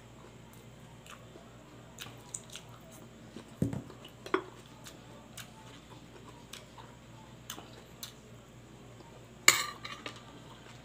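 Metal spoon clinking and scraping against a plate of food in scattered light taps. There is a dull knock about a third of the way in, and a sharp clatter near the end is the loudest sound.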